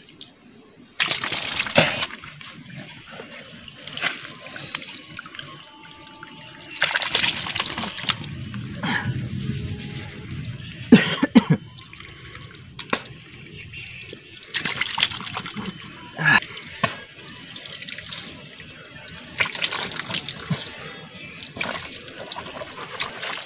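Water trickling from a garden hose onto the ground, with splashes every few seconds as hands scoop and splash the water.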